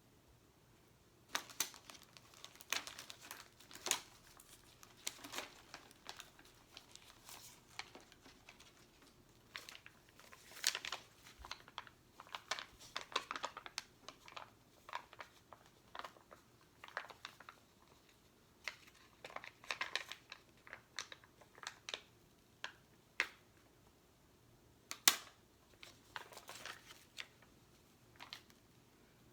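Stickers and their sheets being handled, peeled and pressed down: irregular crinkling with small sticky crackles and taps, and one sharper snap late on.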